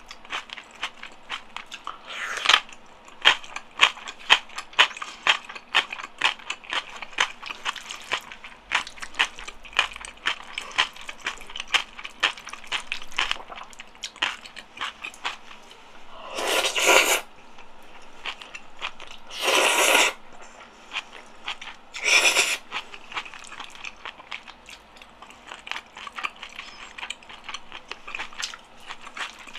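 Close-miked eating sounds: a rapid run of wet chewing and mouth clicks from someone eating gan-jjajang noodles and rice. Past the middle come three louder rushes of noise, each under a second and about three seconds apart.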